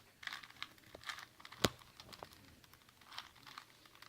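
Plastic Rubik's cube being twisted by hand, its layers turning with a run of small clicks and rattles, and one sharp click about a second and a half in.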